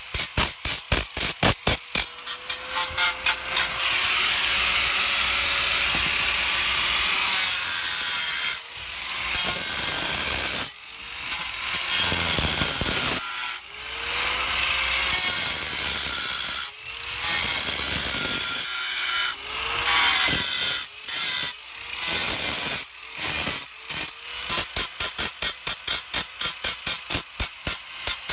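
Ryobi handheld angle grinder cutting into granite. Its wheel runs in a long steady stretch, then in repeated bursts with short breaks in which the motor's pitch glides. A fast, even pulsing sounds at the start and again near the end.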